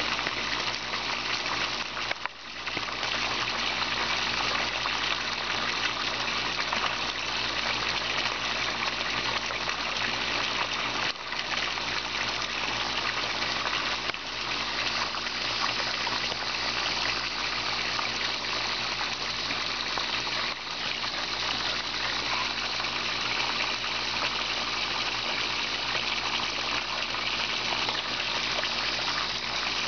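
Water pouring from a white PVC pipe outlet into a pond, splashing steadily into the water surface.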